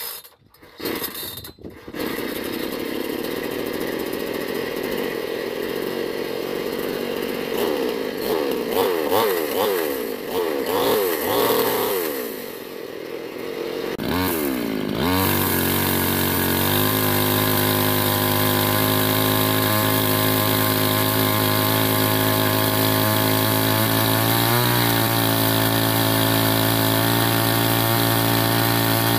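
Budget Bull petrol chainsaw's two-stroke engine, a few short bursts at the start, then running with its pitch rising and falling as it cuts lamtoro wood. About 14 seconds in it sweeps up quickly and then runs at a steady pitch.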